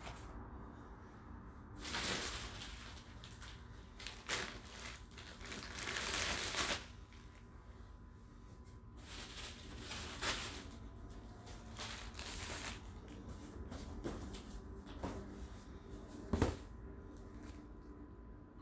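Rustling and scraping bursts from a cardboard box and its packing being handled, several times, with a sharp knock near the end.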